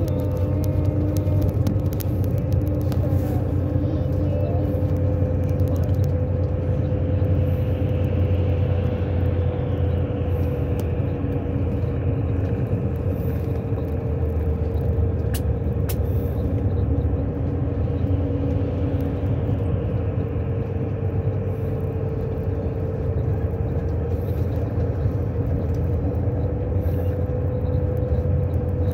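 Steady engine and road noise from inside a moving vehicle: a low rumble with a steady droning tone above it.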